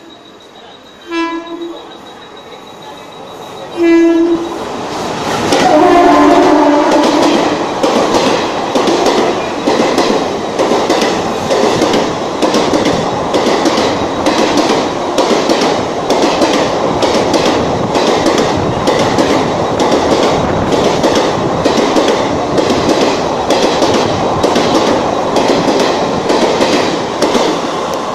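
Indian Railways WAP-4 electric locomotive sounding its horn in short blasts at about one and four seconds in, then a longer blast as it arrives. It runs through the station at speed without stopping. The express coaches follow with a loud steady rush and evenly spaced clacks of the wheels over the rail joints, easing a little as the last coach goes by.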